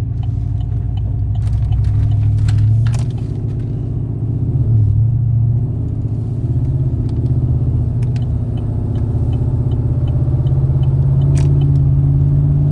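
Cammed Chevrolet Silverado's V8 engine and exhaust running at highway cruise, the note dipping and coming back a few seconds in as the throttle is eased off and reapplied. A few sharp clicks sound over it.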